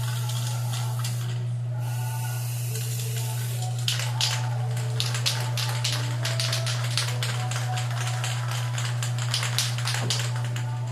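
White paint being applied to a refrigerator's metal panels: a quick run of short, scratchy strokes from about four seconds in, over a steady low hum.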